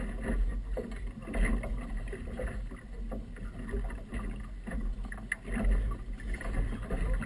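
Wind buffeting the microphone, with choppy water slapping and splashing irregularly against the hull of a small outboard motorboat.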